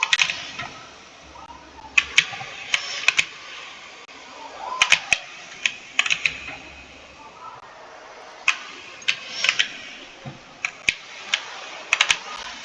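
Computer keyboard being typed on: sharp key clicks, irregular and sparse, coming in short runs of two or three keystrokes with pauses between.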